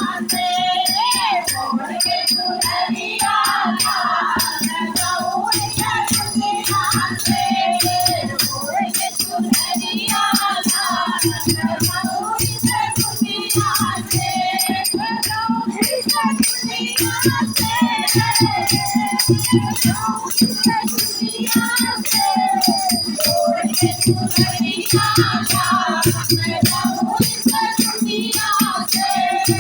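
Hindu devotional bhajan music: a wavering melody line over a fast, steady jingling rattle beat.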